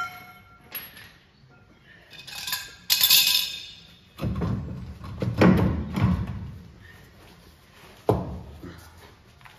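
Steel tools clanking and ringing on the rear wheel studs and hub of a GMC CCKW truck: a sharp ringing clink at the start and a burst of metallic clatter a couple of seconds in. This is followed by a few seconds of heavy low scraping and thudding as the heavy dual wheel is worked loose, and one knock near the end.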